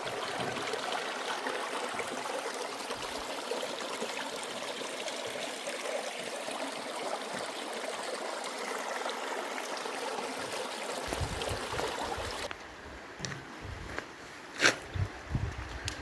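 Stream water running in a steady rush. About twelve seconds in it cuts off abruptly to a quieter low rumble, with one sharp click near the end.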